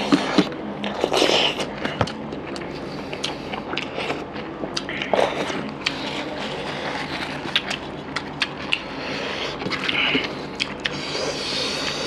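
Close-miked eating sounds: wet chewing and lip smacks, with many short sharp clicks, and fingers mixing rice on steel plates.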